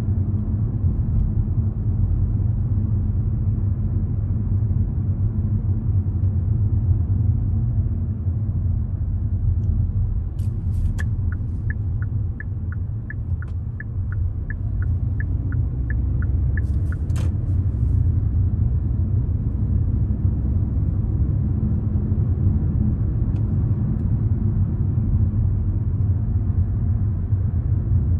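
Car cabin road and engine rumble while driving, steady and low. About ten seconds in, a sharp click starts a run of quick, evenly spaced ticks, about two and a half a second, lasting some five seconds, then another click: the turn-signal indicator switched on and then cancelled.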